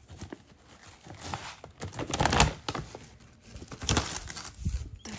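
Plastic rice packet crinkling and rustling as it is handled and opened, in irregular bursts that are loudest about two seconds in.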